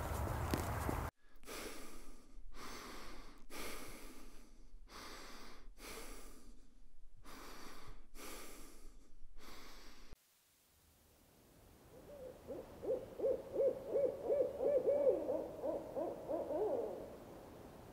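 A person breathing in and out through the nose in quick, even breaths, which stop abruptly after about ten seconds. After a short pause, an owl hoots in a fast quavering series that swells and then fades.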